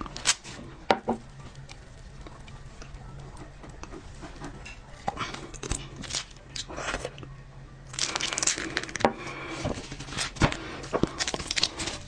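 Close-up crinkling and tearing of plastic packaging, mixed with sharp little clicks and taps as it is handled. The densest crinkling comes about eight seconds in.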